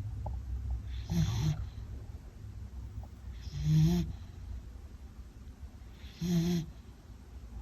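A beagle snoring in her sleep: three snores about two and a half seconds apart, each a short low buzz with a breathy hiss.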